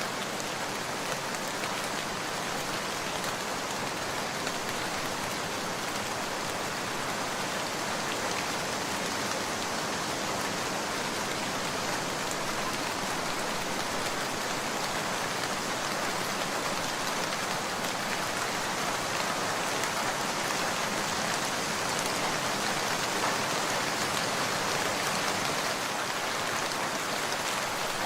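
Steady rain falling, a constant hiss with faint individual drop ticks.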